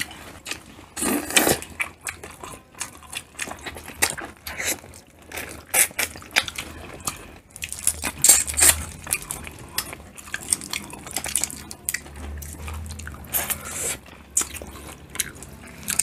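Close-miked eating of a sauce-coated shrimp seafood boil: wet chewing, sucking and biting, with irregular clicks and crackles as shrimp shells are peeled by hand.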